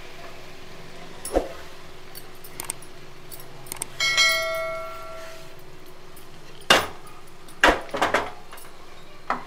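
Chopped onions being tipped from a wooden board into a metal kadai, with small clicks; about four seconds in, a metallic clink that rings on and fades over about a second and a half. Then a wooden spatula knocks against the pan several times as the onions are stirred in.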